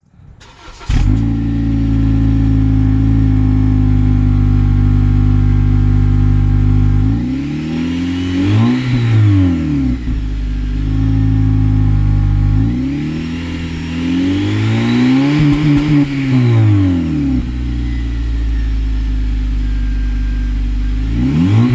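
2015 Honda Civic Si's engine and exhaust idling steadily, revved twice in smooth rises and falls, with another rev beginning near the end.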